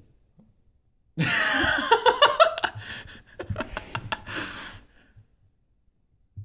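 A person laughing in rapid bursts for about four seconds, starting about a second in and trailing off.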